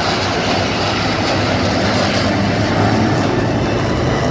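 Jet roar from a formation of four Blue Angels F/A-18 Hornet fighter jets flying past: a steady, loud rushing roar with a low rumble underneath.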